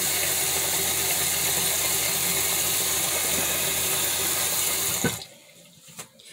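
Tap running steadily into a sink, shut off sharply about five seconds in, followed by a couple of light knocks.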